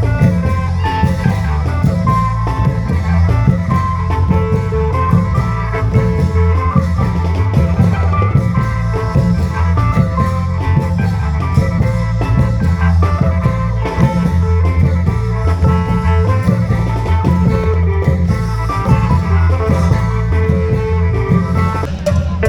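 Isan klong yao long-drum band playing a tune in khaen style: a steady, driving drum beat under a heavy bass line, with a melody running above.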